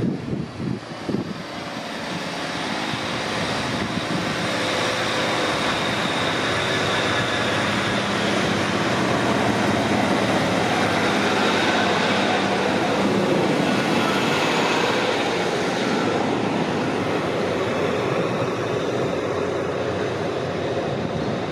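Northern Class 155 Sprinter diesel multiple unit running along the platform: a steady drone of its underfloor diesel engines and rolling wheel noise. It builds over the first seconds, is loudest around the middle as the train passes close, then eases a little as it moves away.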